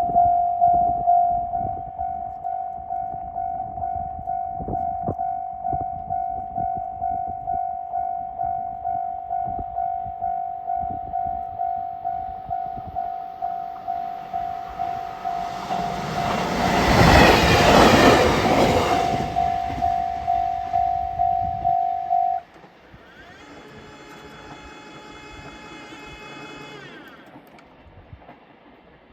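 Japanese railway level-crossing alarm ringing, a repeated electronic ding about twice a second, while a train passes loudly through the crossing. The alarm cuts off suddenly once the train has cleared, leaving a fainter whine for a few seconds.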